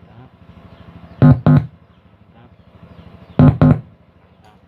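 Music played through a repaired car audio power amplifier and speaker during a sound test: two pairs of short, loud, bass-heavy notes, the first pair about a second in and the second about three and a half seconds in, over a faint hum.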